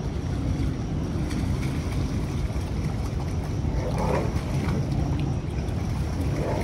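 Steady rush of fast-flowing water in a concrete drainage channel, with wind rumbling on the microphone.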